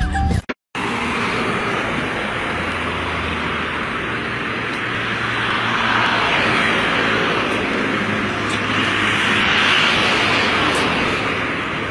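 Road traffic noise: cars passing on a street, a steady rush of tyres and engines that swells as vehicles go by, about six seconds in and again near ten seconds.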